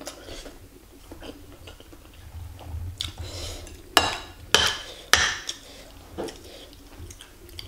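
Metal spoon and fork clinking and scraping against a ceramic bowl, with three sharp clinks in quick succession a little past the middle.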